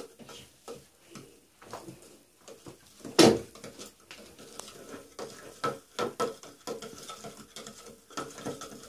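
A spoon stirring baking soda into water in a plastic cup, with scattered small clicks and scrapes, and one louder thump about three seconds in.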